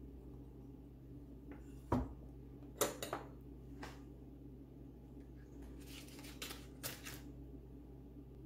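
Ceramic plates and a knife clinking: one sharp knock about two seconds in, a few lighter clicks after it, then a quick run of knife strokes against a plate a little past halfway.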